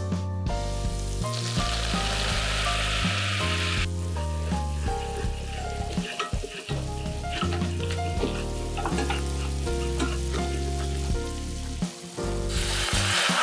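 Butter sizzling as it melts in a stainless steel saucepan, then a whisk scraping and clicking as flour is stirred in to make a roux. Near the end a louder hiss sets in as milk goes into the hot pan. Background music plays throughout.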